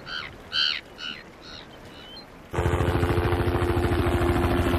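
A few short, high calls, birds over the water, then about two and a half seconds in a sudden cut to a helicopter running in flight, heard from inside the cabin: a loud, steady engine and rotor sound with an even pulse.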